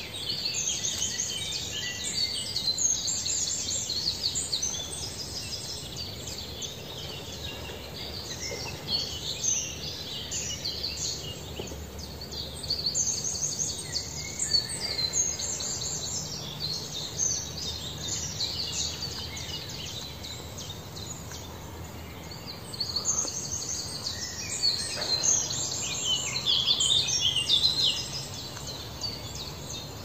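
Small birds chirping and twittering, many high calls overlapping in bouts with quieter lulls between; the loudest bout comes near the end.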